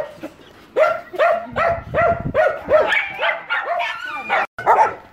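Several dogs barking, a quick run of short, high barks about two a second.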